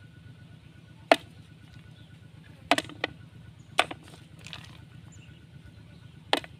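Five sharp, short cracks at irregular intervals: small snail shells being broken by hand against hard ground.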